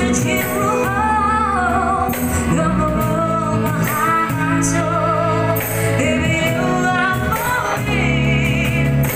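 A woman singing a melody with vibrato into a microphone, backed by a small live acoustic band: electric upright bass, cajón with a cymbal, and piano accordion.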